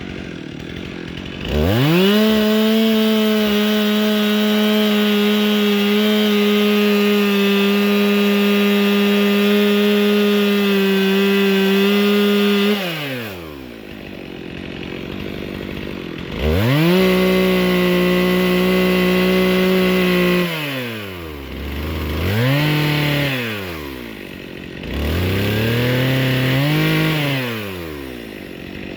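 Stihl MS 362 C two-stroke chainsaw cutting into a tree being felled. It goes from idle to full throttle and holds steady for about eleven seconds, drops back to idle, then revs again for about four seconds, followed by two shorter bursts.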